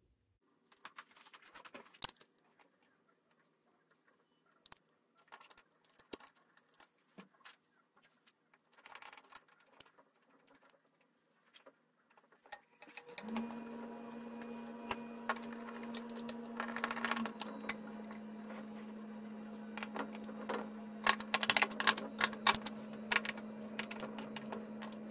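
Small clicks, taps and light metallic clatter of hand work on a pinball playfield: rubber rings being handled and fitted onto the posts and a nut driver touching the metal posts. About halfway through a steady low hum starts and continues under the clicks, dropping slightly in pitch a few seconds later.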